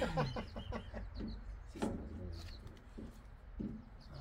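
Birds calling: small high chirps now and then, over short low clucking notes that come every half second to a second.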